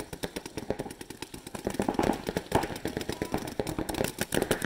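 Electropneumatic Adrenalin Featherlite Angel LCD paintball marker and others on the field firing rapid strings of shots, a dense, fast clatter of pops.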